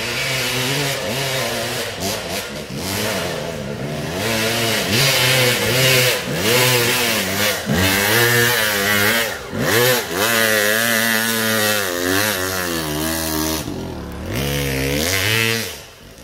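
Off-road dirt bike engine revving hard, its pitch climbing and falling again and again as the throttle is opened and closed; it drops away sharply near the end.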